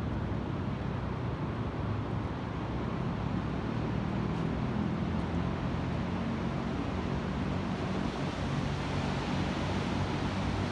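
Steady wash of sea surf with wind buffeting the microphone.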